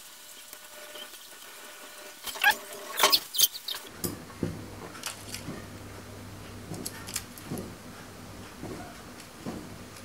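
A small child crying out in short, high squeals, twice, about two and a half and three seconds in. After that come small clicks and taps of hands and a screwdriver working on a laptop's internals, over a low steady hum that starts about four seconds in.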